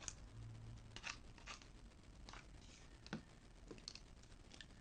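Faint, scattered clicks and scrapes from slime-making materials being handled and stirred in a container.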